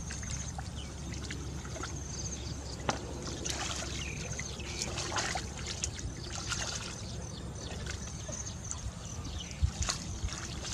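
Hands and legs sloshing and squelching through shallow muddy water while groping in the mud for fish, with small irregular splashes and trickles.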